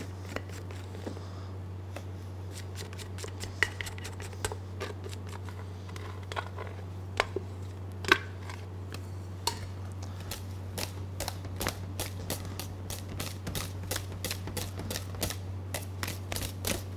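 A wire balloon whisk strikes the sides of a stainless steel bowl as whipped cream and meringue are mixed by hand. It starts as scattered metallic clinks while the meringue is scraped in from a saucepan, then from about ten seconds in becomes a fast, regular tapping, about three strikes a second. A steady low hum runs underneath.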